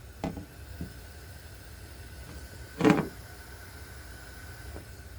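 A few light knocks and one louder, brief rattling knock about three seconds in, over a low steady hum from an HVAC unit that is running without moving air.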